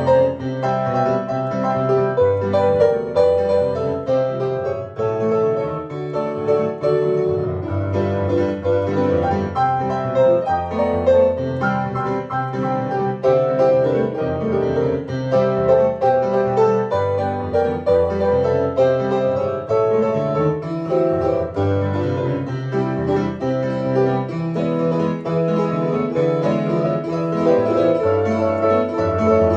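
Digital piano played solo: a continuous, flowing piece of chords and melody with no breaks.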